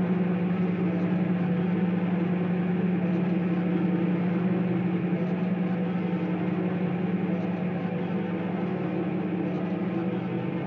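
Improvised experimental electronic music: a dense, steady low drone with a strong hum and a noisy, grainy layer above it, easing slightly in level near the end.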